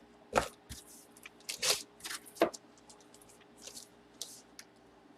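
Packaging being handled and opened by hand: a string of sharp crinkles and crackles in the first two and a half seconds, then lighter taps and rustles.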